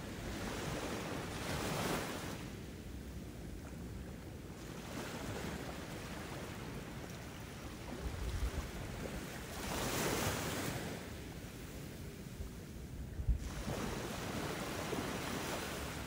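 Ocean surf: waves washing in and drawing back, the rush swelling and fading every few seconds.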